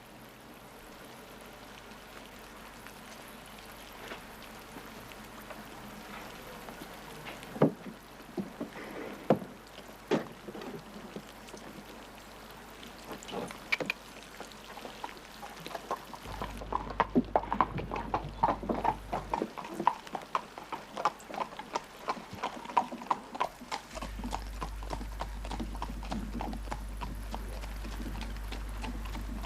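Horse's hooves clip-clopping on a hard road: a few scattered hoof strikes at first, then a quicker, steady run of clip-clops from about halfway through that fades near the end.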